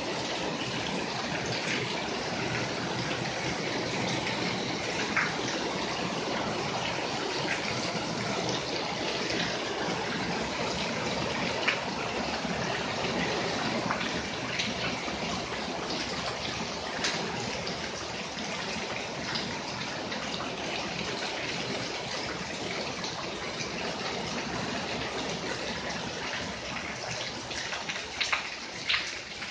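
Steady rain, with water streaming off the roof edges and splashing onto wet paving. Scattered louder drips, a few of them bunched near the end.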